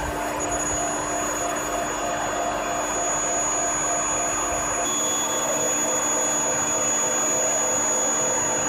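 Induction heating furnace running: a steady high-pitched whine and hum over machinery noise. About five seconds in a second, slightly lower whine joins and the deep rumble drops away.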